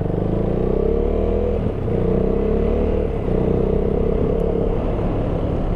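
KTM Duke 390's single-cylinder engine running under way. Its note climbs, dips briefly about a second and a half in, then holds fairly steady.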